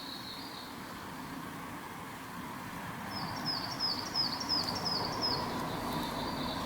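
A bird singing a quick series of about eight high, short, down-slurred notes, about three a second, then one steadier high note, over a steady low background hum.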